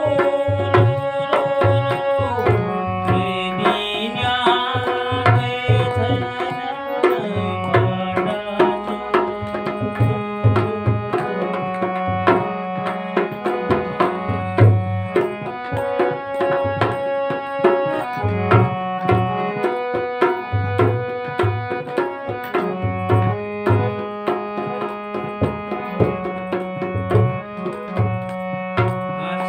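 Harmonium playing a folk melody over a steady tabla-style hand-drum beat, in an instrumental passage between sung verses.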